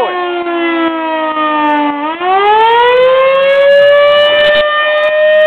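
Fire engine siren with a rich, many-toned sound. Its pitch slides slowly down for about two seconds, climbs back up over the next second and a half, then holds high and steady.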